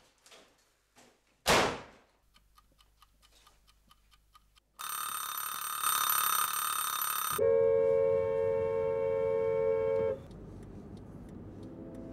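A single loud bang about a second and a half in, like a door slamming, then faint regular ticking. A mechanical wind-up kitchen timer's bell rings for about two and a half seconds. It gives way to a steady droning tone over a low rumble, which fades to a quieter rumble near the end.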